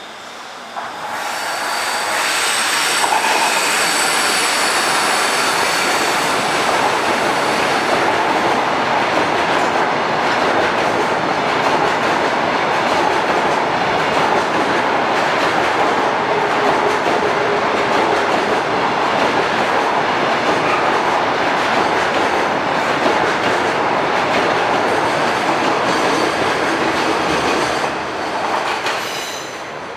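Freight train passing close by: steady, loud wheel-and-rail noise that builds about a second in and holds for nearly half a minute before fading near the end. Thin high squealing tones from the wheels sound over the first several seconds.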